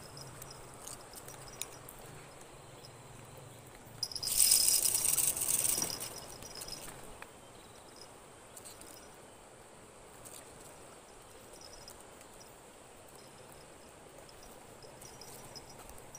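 Steady chirring of insects, with a faint rush of river water. About four seconds in, a loud hiss lasting nearly two seconds as a fishing rod is cast and line pays out off the reel.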